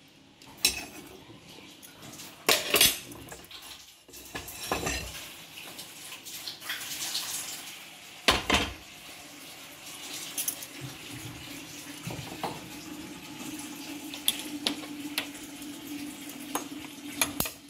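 Kitchen clatter of steel pots, bowls and utensils, with several sharp clanks and a stretch of running, splashing water. A steady low hum sets in about halfway through.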